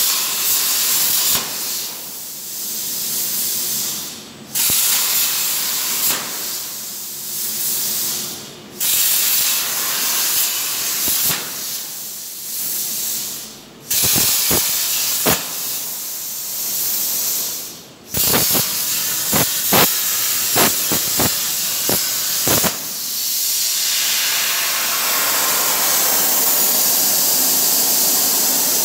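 Powermax105 air plasma cutter on a CNC table cutting sheet metal: the arc's loud, steady hiss, which cuts out briefly about four times as the torch finishes one cut and pierces the next. A run of sharp clicks and pops sounds through the middle stretch.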